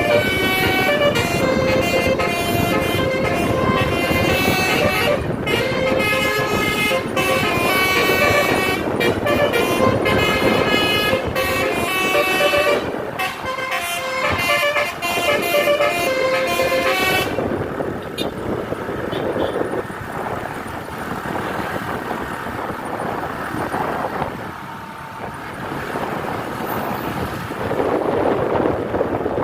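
Multi-tone 'telolet' air horn on a tourist bus playing a stepped melody of held notes for about 17 seconds, then cutting off suddenly. After it comes the rumble of the bus and road noise.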